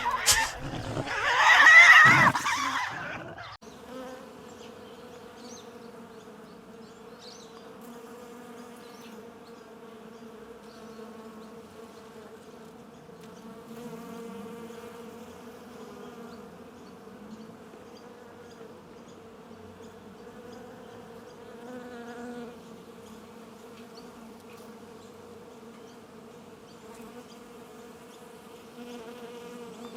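Flying insects buzzing: a steady low hum that holds one pitch. It follows a loud harsh burst in the first three seconds, which cuts off suddenly.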